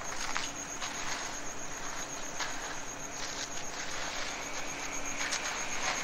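Small engine of a vibrating power screed running steadily as it is pulled across wet concrete, with a few faint scrapes of a rake in the concrete.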